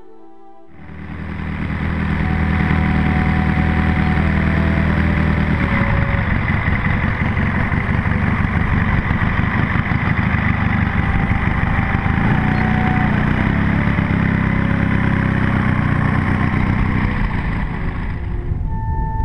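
Valach VM120 B2-4T, a four-stroke twin-cylinder model aircraft engine with a single muffler, running steadily on the ground. It comes in about a second in and fades out near the end.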